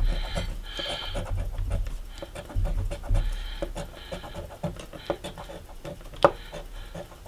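A coin scratching the coating off a scratch-off lottery ticket in repeated short rubbing strokes, with one sharp click about six seconds in.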